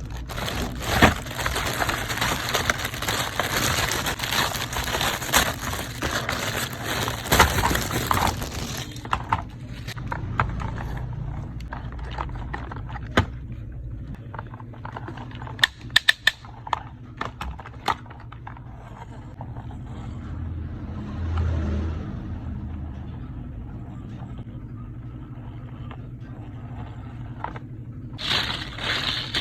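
Toy excavator and building blocks being handled, with continuous scraping and rattling for about nine seconds, then a few scattered sharp clicks of blocks knocking together, and more scraping near the end.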